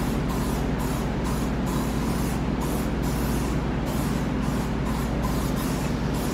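Aerosol can of Off! insect repellent spraying onto a plastic car headlight lens in a rapid series of short hissing bursts, about two a second, over a steady low hum.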